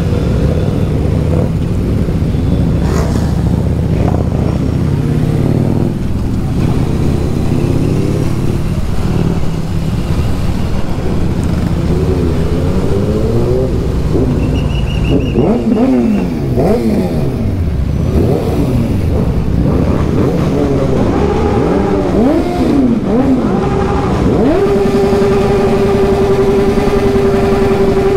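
Motorcycle engines running on the road under a rush of wind noise. About midway the engine pitch rises and falls repeatedly with throttle and gear changes. Near the end it settles into a steady cruising drone.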